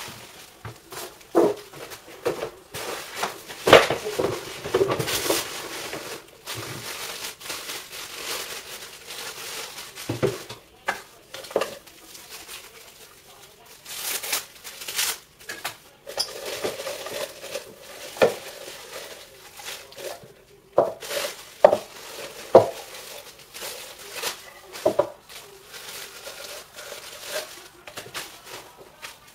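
Plastic packaging bags crinkling and rustling in irregular bursts as they are pulled off and crumpled, with scattered knocks and clicks of hard parts being handled and set down on a table.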